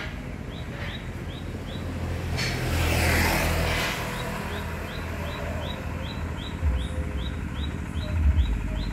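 A motorcycle passes on the road, its sound swelling up about two seconds in and fading a couple of seconds later. Through it a bird chirps over and over in short rising notes, about three a second.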